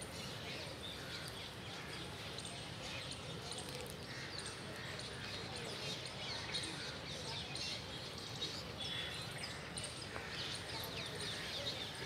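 Many birds chirping and calling at once, short quick high-pitched calls overlapping throughout over a low steady background hum.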